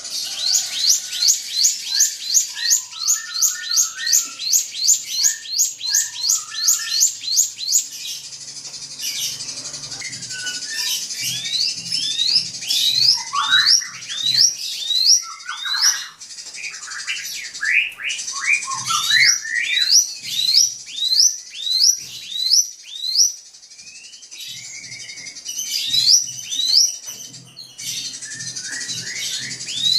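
Drongo (srigunting) singing long runs of rapid, sharply rising whistled notes, about three to four a second. Lower chattering notes are mixed in through the middle, and there is a short pause later on before the whistles resume.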